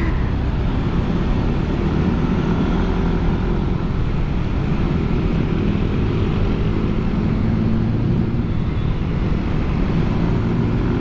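Yamaha NMAX 155 scooter's single-cylinder engine through a ROB1 Racing aftermarket exhaust, running at a steady cruise while ridden, a low even drone with road noise and no revving.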